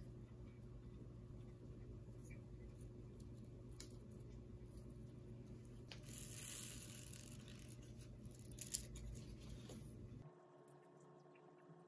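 Faint scraping and rustling of potting soil being worked with a plastic spoon and fingers, with a short louder rustle about six seconds in and a single sharp click a little before nine seconds.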